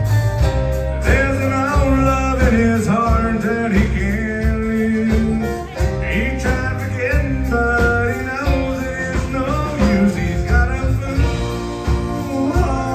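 Live country band music: a fiddle being bowed over acoustic guitar, electric guitars and drums, with a steady beat.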